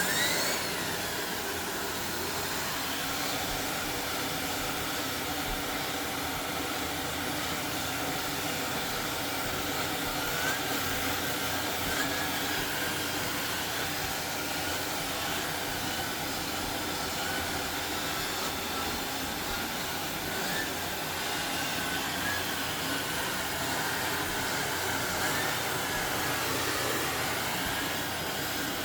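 Shark Navigator Lift-Away Pro vacuum cleaner running steadily while vacuuming pet hair off bedding, its whine wavering slightly in pitch.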